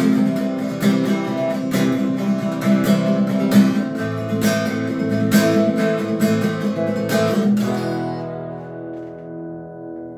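Guitar strummed in a steady rhythm of chords, then a final chord about eight seconds in that is left to ring and slowly die away.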